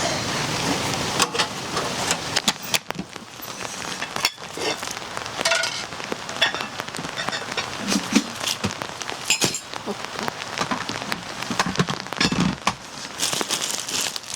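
Rain pattering on a surface with many irregular sharp ticks, and a couple of dull thumps about eight and twelve seconds in.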